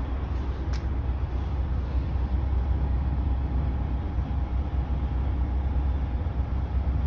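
Steady low rumble of an idling truck engine, with one short click about a second in.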